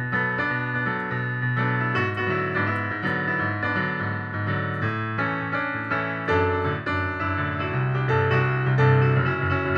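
Yamaha digital piano played solo, with dense chords and melody over low bass notes in a continuous, lively pop arrangement.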